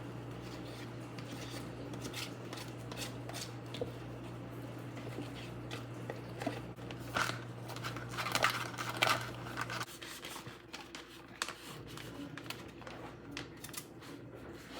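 Kitchen handling noises, with clicks, light clatter and rustling of packaging and dishes, busiest a few seconds before the middle. Underneath runs a steady low hum that cuts off suddenly about ten seconds in.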